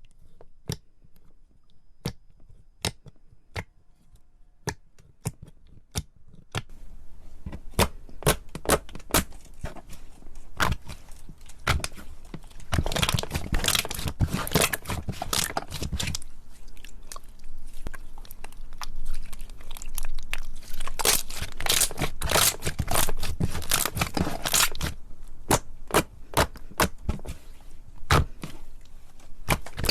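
Slime handled close to the microphone: sharp separate clicks about twice a second at first, then from about six seconds in a dense, continuous crackling and crunching.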